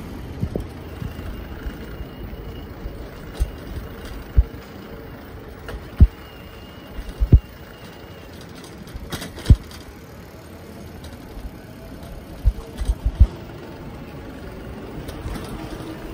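Riding a bicycle on a city street: a steady rumble of tyres and traffic, broken by about a dozen sharp knocks as the bike jolts over bumps, a few coming in quick clusters.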